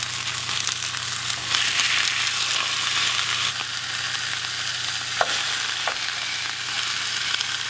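Raw bone-in pork chops sizzling as they are laid one after another into a hot frying pan, the sizzle growing louder about a second and a half in as another chop goes in. Two light clicks come near the middle, over a faint steady low hum.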